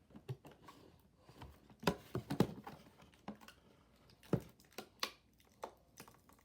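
Hands handling a plush toy and its packaging: scattered light taps, knocks and faint rustles at irregular intervals, a few louder knocks about two seconds in and again a little after four seconds.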